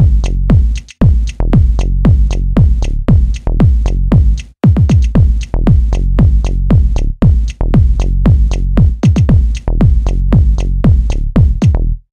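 Electronic background music with a fast beat of drum hits that slide down in pitch, cutting out briefly a couple of times.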